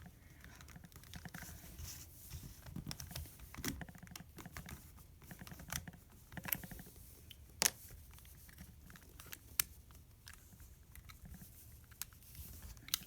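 Plastic LEGO pieces of a puzzle box being handled and pushed: irregular light clicks and rattles, with a sharper click a little past halfway.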